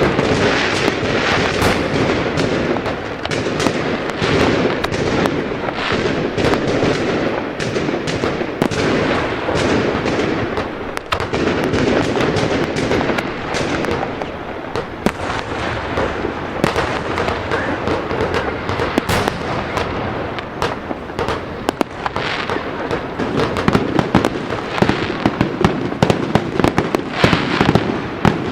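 A fireworks display: a continuous barrage of bangs, crackles and pops running together without a break, with dense rapid snapping toward the end.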